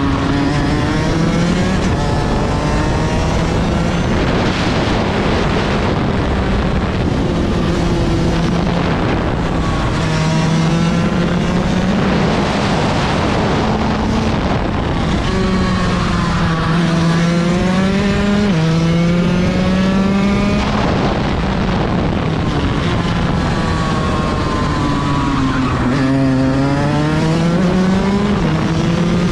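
Onboard sound of a Rotax 125 DD2 EVO two-stroke kart engine at racing speed, its revs climbing on the straights and falling into the corners several times over, with one sudden drop in pitch partway through. A rush of wind runs underneath.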